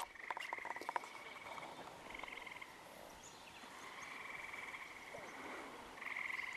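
Frogs calling in a series of high, pulsing trills, one after another, each lasting about half a second to a second and a half. A few sharp clicks come in the first second.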